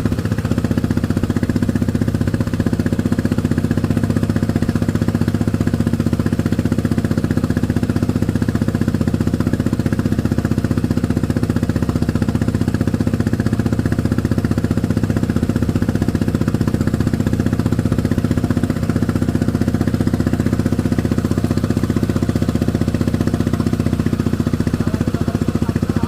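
Small boat engine running steadily at a constant, even speed, with a rapid regular firing chatter.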